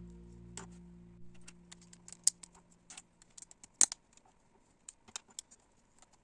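Plastic LEGO pieces clicking and clacking as they are handled, a string of sharp, irregular clicks. The loudest come about two and four seconds in. Background music fades out over the first three seconds.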